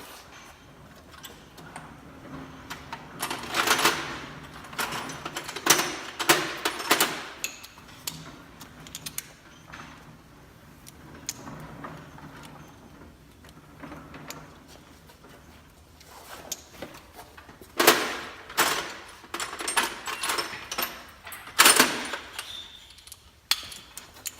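Tools and parts handled in a car's engine bay: scattered clicks, clinks and rattles, louder in clusters about 4 and 6 seconds in and again around 18 and 22 seconds.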